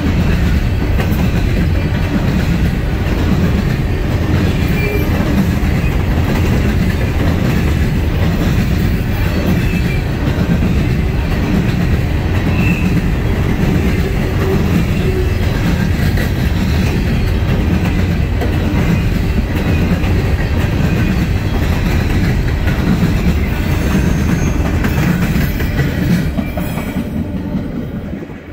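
Empty steel coal hopper cars of a freight train rolling past close by, their wheels clattering over the rail joints in a steady rhythm. Near the end the last car goes by and the noise falls away.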